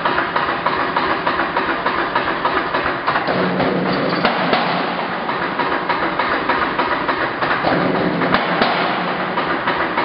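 An 88 lb Anyang C41-40 self-contained air power hammer running, its ram cycling in a fast, steady run of heavy mechanical blows.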